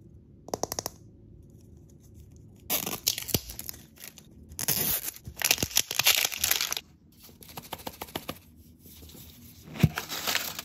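The outer wrapper of an L.O.L. Surprise toy ball being ripped and peeled off in loud, ragged tearing bursts, then softer crackling. Near the end comes a single sharp snap as the plastic ball is pried apart at its seam.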